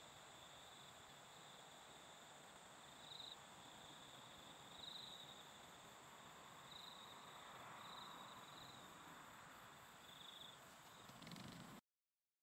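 Faint, steady high-pitched insect trilling from crickets or similar field insects, swelling briefly several times, then cut off suddenly near the end.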